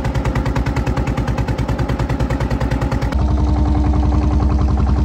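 Wooden river ferry boat's engine running at a fast, steady chug of about ten beats a second. About three seconds in, the chug turns louder and deeper, with a steady hum over it.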